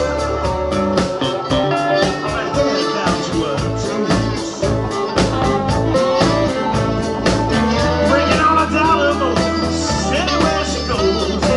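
Live blues-rock band playing with a steady beat: electric guitars, drums and keyboard, with a saxophone playing lines over them.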